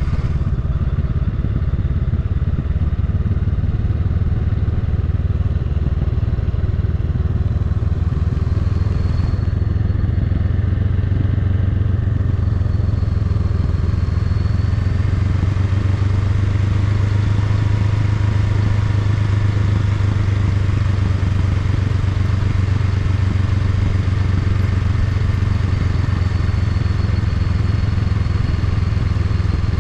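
Honda Rebel 500 motorcycle's parallel-twin engine running steadily at low speed while riding, a constant low hum.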